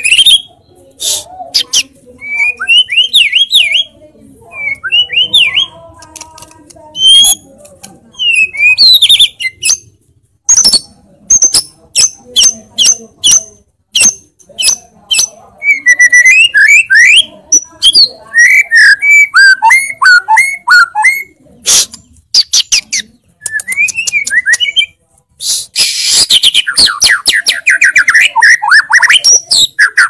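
White-rumped shama singing a loud, varied song of sharp clicking notes and quick whistled phrases. Near the end it breaks into a fast, rattling trill.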